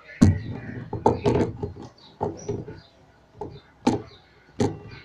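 Homemade slime being worked after more borax activator is added: a run of about nine irregular sharp slaps and knocks, some in quick clusters.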